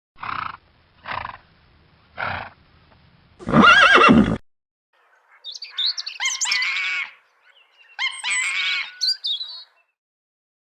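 Animal calls: three short calls, then a loud pitched call about three and a half seconds in, then two long calls with wavering, sliding pitch in the second half.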